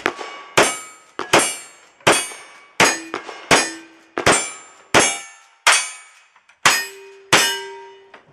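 Cowboy action shooting string: about eleven gunshots at a steady pace of roughly one every 0.7 s, each followed by a ringing tone from a struck steel target.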